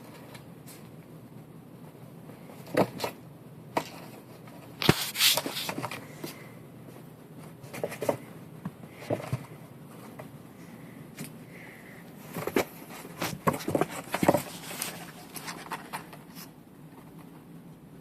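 Cat moving about in a cardboard box: irregular scrapes, scratches and knocks, with a loud cluster about five seconds in and another burst between about twelve and fifteen seconds.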